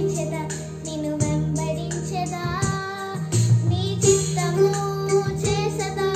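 A young girl singing a melody over a backing track with steady low notes and a regular beat.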